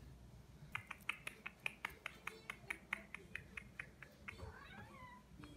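A Ragdoll cat chewing oat cat grass: a quick, even run of crisp clicks, about five a second, that stops a little past halfway. A faint short meow follows near the end.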